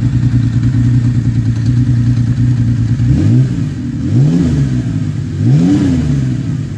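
Kawasaki KZ1300's carburetted 1286 cc liquid-cooled six-cylinder engine idling steadily, then revved in three short throttle blips, each rising and falling in pitch, starting about three seconds in.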